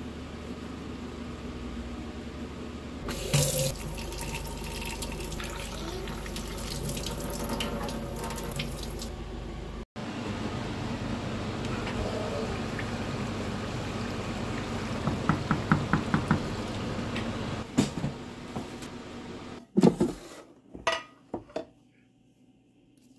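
Water running from a tap into a sink in a steady rush, cut off abruptly just before ten seconds in and then running on. Near the end the water stops and a few separate knocks follow.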